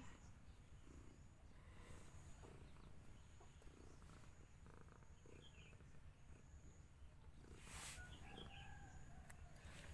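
Near silence: a faint steady low rumble, with a few faint high chirps and a brief soft rustle about eight seconds in.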